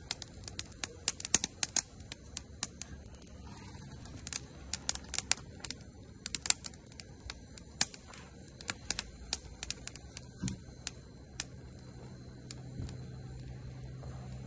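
Small twig-and-kindling campfire crackling with irregular sharp pops, several a second at first and thinning out in the second half. A steady low hum comes in about ten seconds in.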